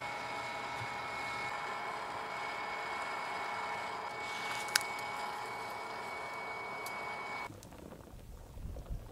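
Electric air blower feeding a charcoal crucible furnace, running steadily with a high whine, with one sharp click about halfway through. It cuts off suddenly about seven and a half seconds in.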